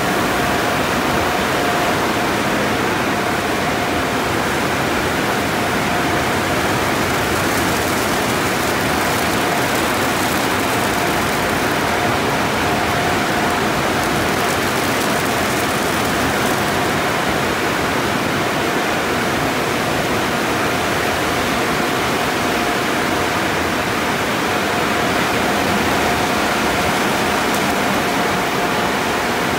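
Steady rush of water spray and running wash machinery inside an automatic conveyor car wash tunnel, with a faint steady whine underneath.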